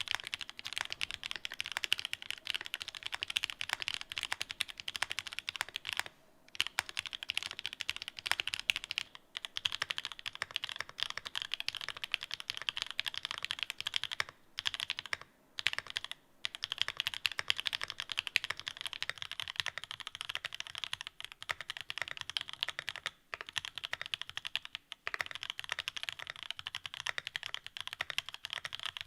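Mechanical keyboard with pink linear switches and cherry-profile keycaps being typed on in fast, steady runs of keystrokes, broken by a few short pauses.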